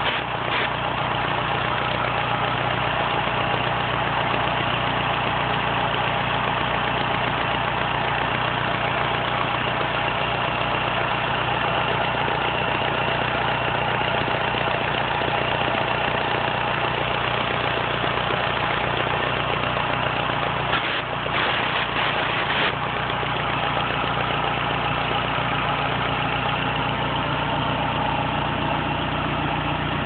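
2004 Dodge Neon SRT-4's turbocharged 2.4-litre four-cylinder idling steadily during a vacuum-leak check. Short sprays from an aerosol can are aimed around the intake manifold near the start and again about two-thirds of the way through.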